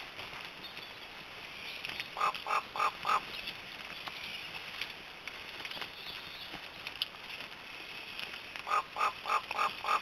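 Griffon vultures calling: two runs of four or five quick, evenly spaced calls, about four a second, one a couple of seconds in and one near the end.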